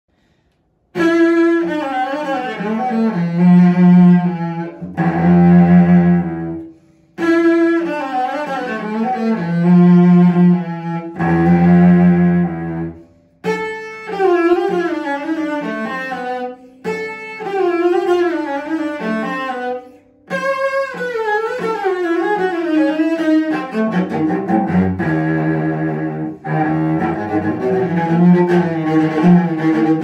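Solo cello, an E.H. Roth made in Bubenreuth in 1977, played with the bow: phrases of held notes, including deep low notes, with short breaks between them, then a more continuous passage of moving notes.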